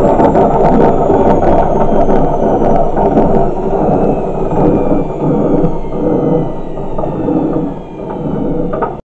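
Zanussi washing machine drum spinning with a loud rumbling grind from its damaged drum bearings. A faint whine above the rumble falls slowly in pitch as the drum runs down. The sound cuts off suddenly near the end.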